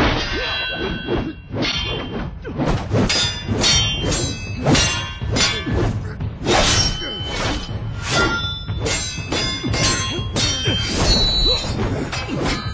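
Film fight sound effects of metal blades clashing again and again, each clang leaving a short metallic ring, mixed with whacks and thuds over a music score. The clashes come thick and fast, several a second, from about two and a half seconds in.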